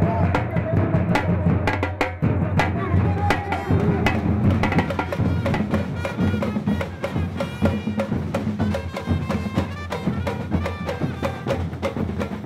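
Music led by drums and percussion, with many brisk sharp hits over a full low end; a higher melody line joins about halfway through.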